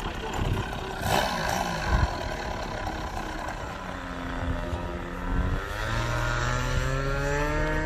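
Radio-controlled model airplane's propeller motor running, then rising steadily in pitch as it throttles up for the takeoff run.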